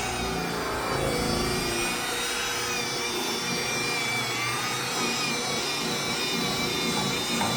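Electric paint buffer running steadily on the tractor's paintwork, its motor whine drifting up and down in pitch as the load on the pad changes.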